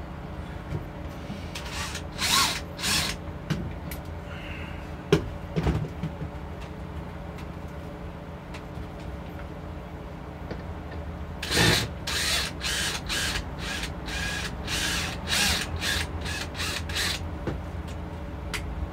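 Cordless drill-driver driving wood screws into plywood in short stop-start bursts: two bursts about two seconds in, a couple of light knocks near the middle, then a quick run of bursts in the second half.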